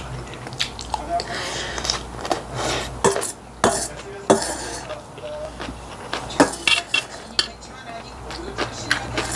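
Metal spoon clinking and scraping against a stainless steel bowl while scooping and mixing bibimbap, in short, irregular knocks.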